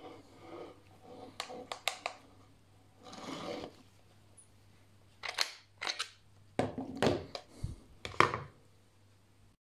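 A series of sharp metallic clicks and knocks as a foam cannon's plug is snapped into a pressure-washer gun's brass quick-connect coupling, pulled out again, and the parts are set down on a wooden table. The loudest knock comes near the end.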